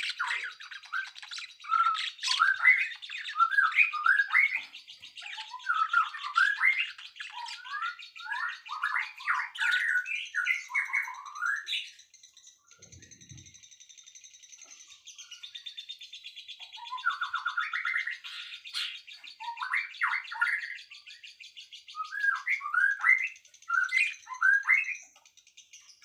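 Songbirds chirping in quick runs of short rising and falling notes, with a lull of a few seconds about halfway through, over a fine high steady buzzing trill.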